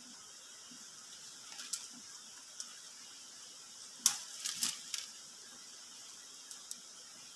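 Scattered clicks and crackles from a woven basket being handled and set down on dry leaf litter, with a louder cluster about four seconds in, over a steady high hiss.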